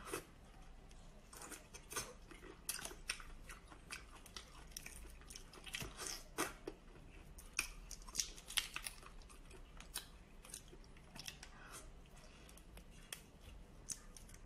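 Raw black tiger prawns being peeled by hand and sucked from the shell: irregular crisp cracks and clicks of shell breaking and being pulled apart, with eating sounds at the lips.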